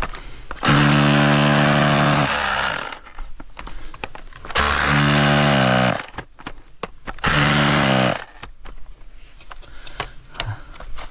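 A handheld power tool's motor running in three bursts of about one to two seconds each, the middle burst dipping in pitch and recovering as it bites, with small knocks and scrapes between the bursts.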